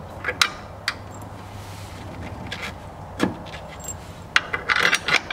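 Short metallic clicks and clinks of strut brace rods and bolts being handled and set into place: a few single clicks, then a quick run of them near the end.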